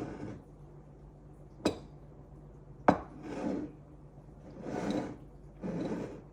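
Two sharp knocks about a second apart, then three soft rubbing or shuffling sounds, like objects being handled.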